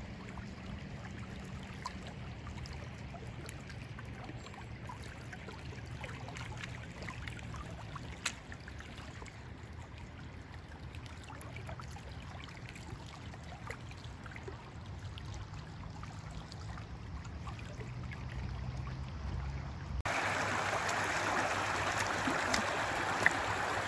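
Quiet lakeshore ambience: calm lake water faintly lapping on a pebble beach over a low steady hum, with a few small ticks. About twenty seconds in it cuts to a shallow creek running over stones, a louder steady trickle of water.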